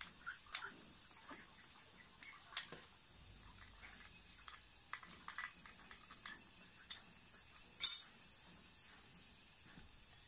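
A metal tool clicking and clinking against the base of a PCP high-pressure hand pump while its outer tube is unscrewed: a string of light metallic ticks, with one loud clink about eight seconds in.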